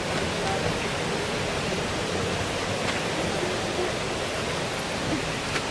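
Steady rush of flowing water, an even hiss with no break, broken only by a couple of faint clicks.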